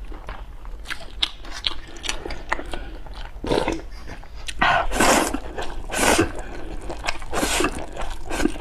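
A person eating close to the microphone: chewing with many small wet clicks. Four louder noisy bursts come in the second half.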